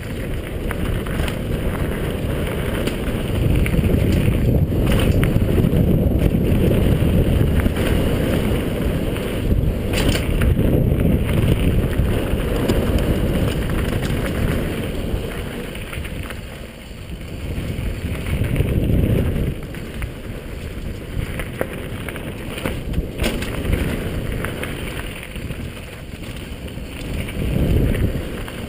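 Wind rushing over a helmet-mounted camera's microphone and the Marin Quake 7.3 downhill bike's tyres rumbling on a dirt trail at speed, the rumble swelling and easing as the pace changes. A few sharp knocks from the bike over bumps.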